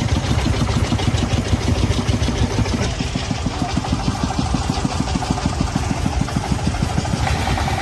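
Large truck engine running steadily, a fast even pulsing.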